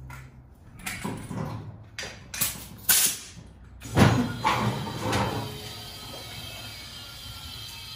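Garage work on a motorcycle: several short scrapes and rustles, a sharp metallic clank about four seconds in, then a steady hiss.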